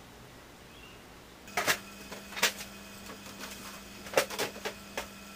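A steady electrical hum sets in about a second and a half in, with irregular sharp clicks and crackles over it, some in quick pairs.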